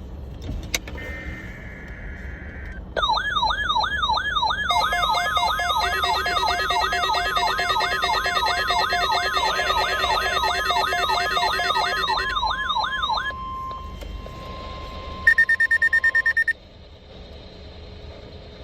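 Weather radio alarms going off for a test tornado warning: a siren-like warble rising and falling about two and a half times a second, joined by the steady 1050 Hz weather radio alert tone. About fifteen seconds in, a short run of rapid high beeps follows.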